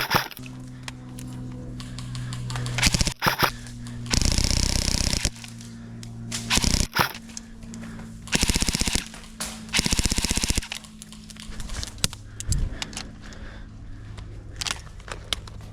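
Airsoft electric guns firing on full auto: three rapid rattling bursts of about a second each, around four, eight and ten seconds in, with scattered single sharp pops between them.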